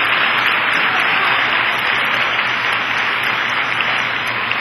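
Large audience applauding: a dense, steady clatter of many hands clapping, easing off slightly near the end.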